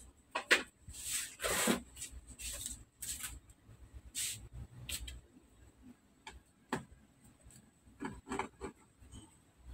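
Irregular short scraping and rubbing strokes from a screwdriver and hands working on an opened Samsung LED TV's sheet-metal back chassis and boards. The strokes thin out to a few light clicks and scrapes after about five seconds.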